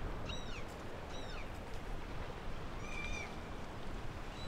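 Gulls calling: three short calls that arch up and fall back, about a second in, soon after, and again about three seconds in, over a steady low rumble.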